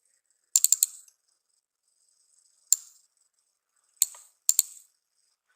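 Computer keyboard and mouse clicks as figures are entered in a spreadsheet. There is a quick run of clicks about half a second in, a single click midway, and two more short runs near the end.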